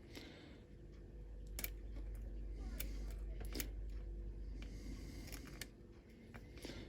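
A small lock being handled: a few faint, sharp clicks and light rustling over a steady low hum.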